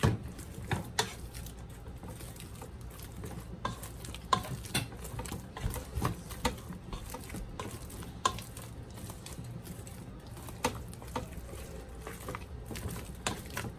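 Black plastic potato masher working mashed potatoes with milk and butter in a metal pot, with irregular knocks and scrapes against the pot, a few a second.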